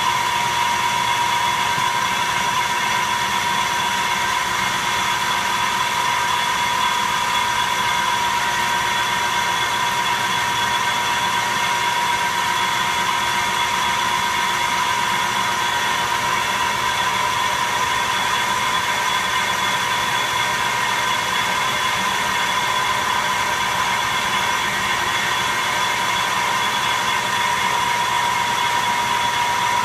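Metal lathe running steadily with its chuck and steel workpiece spinning, a steady high whine sitting over the machine's running noise.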